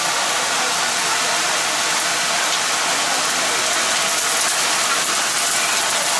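Steady rushing hiss of gas wok burners at a commercial stir-fry stove.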